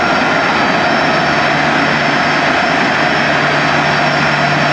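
Boeing 747SP's four Pratt & Whitney JT9D turbofan engines running at taxi power as the jet taxis. The sound is a steady jet whine over a low hum.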